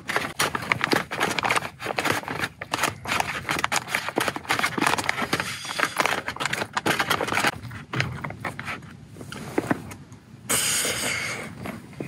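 Dense crinkling, clicking and scraping from handling a freshly cooked camp meal: food packaging and utensils being worked. About ten and a half seconds in, a short burst of hiss.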